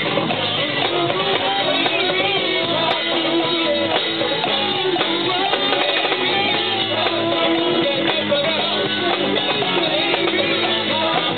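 Live rock band playing: electric guitars and a drum kit, loud and steady.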